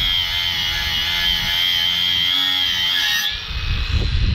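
Harbor Freight Earthquake XT 20V brushless 4.5-inch angle grinder running with a steady high whine as its abrasive disc grinds the face of a rusty brake rotor. A little after three seconds in the sound drops and changes as the grinder comes off the rotor.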